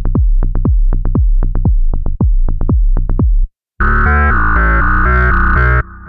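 Tone2 RayBlaster 2 software synthesizer playing its 'GoaSubLine MF' sequence preset: a fast, repeating plucked bass line over a deep sub-bass. It stops about three and a half seconds in, and a different, denser preset follows: a sustained buzzy chord over a pulsing bass.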